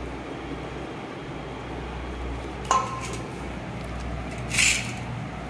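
A spoon clinks once against a stainless steel pan with a short ring, then scrapes briefly against the metal about two seconds later, over a steady low hum.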